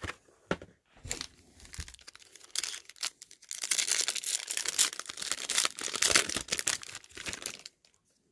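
Foil wrapper of a football trading-card pack being torn open and crinkled. First come a few scattered rustles and knocks, then dense crackling from about three and a half seconds in that stops shortly before the end.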